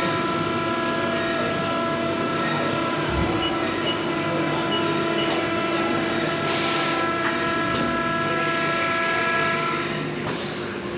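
A motor-driven machine running with a steady multi-tone whine. A short burst of hiss comes a little past halfway, and a longer one near the end.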